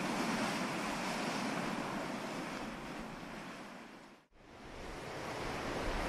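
Ocean waves washing steadily, with no other sound. About four seconds in the wash fades down to a moment of silence, then fades back up.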